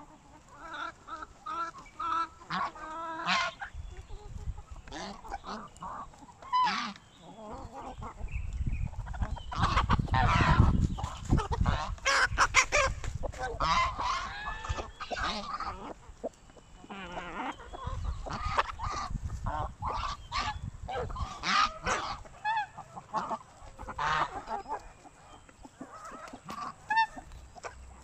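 Domestic geese honking and chickens clucking, many short overlapping calls throughout, busiest and loudest through the middle, with a low rumble under that middle stretch.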